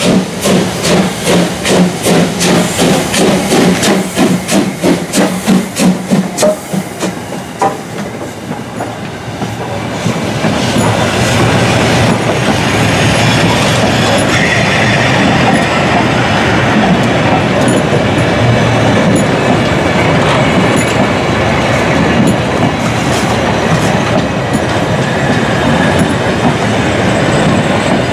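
Prussian P8 two-cylinder steam locomotive passing, its exhaust beating in a quick, even rhythm for about the first seven seconds. After that the beats give way to the steady rumble and rail-joint clatter of the coaches and wagons rolling by.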